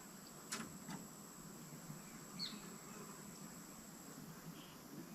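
Faint outdoor ambience: a steady high-pitched insect drone that stops about four seconds in, two faint clicks near the start, and a brief high chirp about two and a half seconds in.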